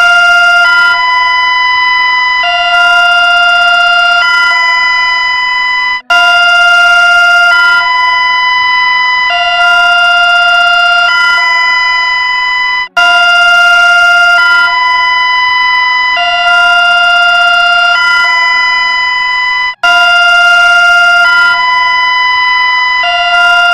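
Emergency alert alarm tone: a loud electronic hi-lo signal switching back and forth between two pitches about every two seconds, cutting out briefly and restarting about every seven seconds.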